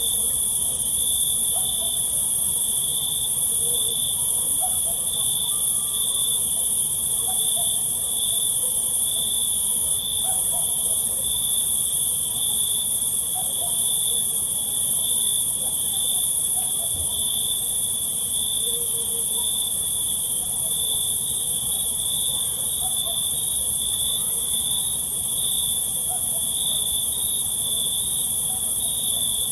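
Cricket chirping in a continuous, even trill, over a dense steady hiss of other insects higher up, with faint short calls lower down now and then.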